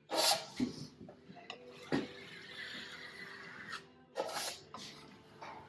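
Demolition work: a few sharp knocks and clunks, with a scraping rustle in between, as rotten framing and debris are handled.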